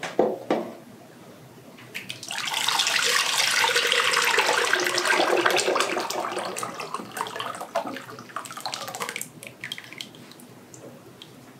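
Thick strained green tomato purée pouring from a metal pan into a slow cooker, a wet, sloppy pour lasting about seven seconds and tapering off near the end. A short metal clatter comes at the start.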